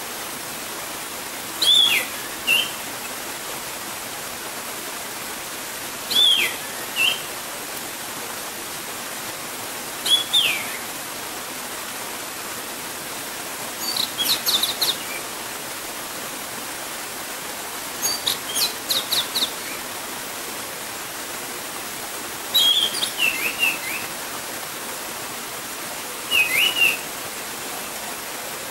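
Orange-headed thrush singing: seven short phrases about four seconds apart. Some are sliding notes and some are quick runs of sharp notes. They carry over the steady rush of a gurgling stream.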